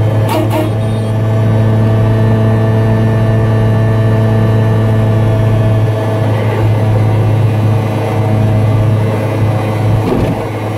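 Piaggio Ape 50's small two-stroke single-cylinder engine running steadily at cruising speed, heard from inside its cab as a constant low drone.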